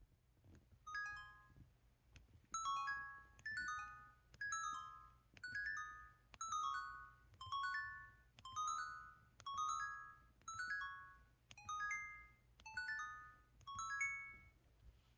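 Harp-style keypad tones of an IM-U440K mobile phone: a short plucked-harp chime for each key press, about one a second, thirteen in all. Each chime is a quick run of a few notes.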